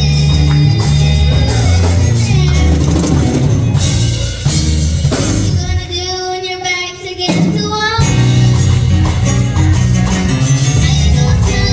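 Church choir singing with a live band of bass, drums and guitar. About halfway through the band drops out while voices hold a long wavering note, and the band comes back in about two seconds later.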